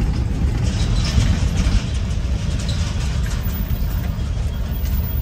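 A car driving slowly, heard from inside the cabin: a steady low rumble of engine and tyre noise on the road.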